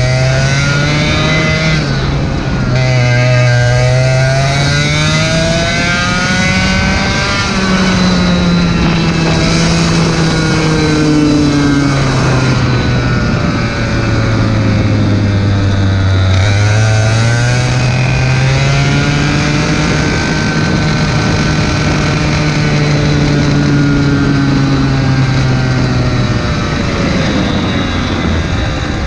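Two-stroke racing kart engine heard onboard, its pitch climbing as it accelerates and sinking as it slows for corners, with a sharp drop about two seconds in. Near the end the engine eases off and falls in pitch as the kart slows.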